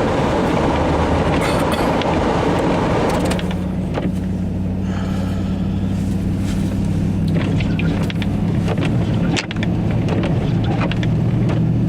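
Truck engine running with a steady low drone. A loud rushing noise lies over it for the first three seconds or so, then stops, leaving the engine hum and a few scattered clicks.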